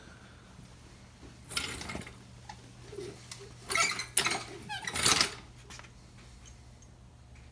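Light metallic clinks and scrapes of a circlip installer tool being handled and set against a chainsaw piston, in three short bursts, over a faint steady hum.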